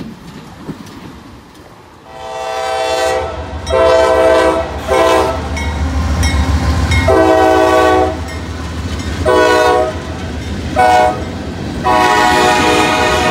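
Norfolk Southern freight locomotive's air horn sounding about seven blasts, some long and some short, starting about two seconds in, over the low rumble of the passing diesel locomotive.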